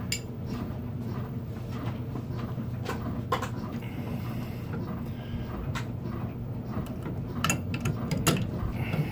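Scattered metallic clicks and clinks from a 5/8 wrench being handled and fitted onto the circulating pump's flange bolts, over a steady low hum.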